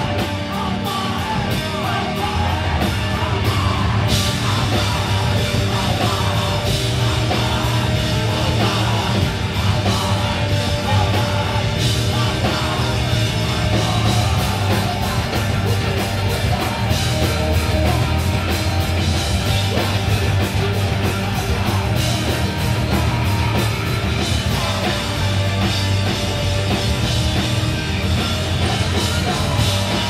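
A hardcore punk band playing live: loud distorted electric guitar, bass and drum kit keeping a fast, steady beat.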